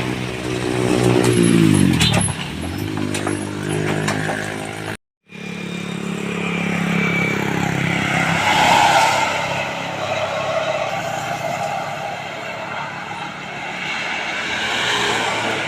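Road traffic passing by. A vehicle's engine drops in pitch as it goes past about two seconds in. After a sudden cut, more vehicles pass with continuous engine and tyre noise.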